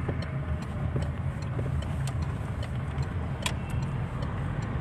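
Car driving, heard from inside the cabin: a steady low rumble of engine and road noise, with scattered light clicks and one sharper click about three and a half seconds in.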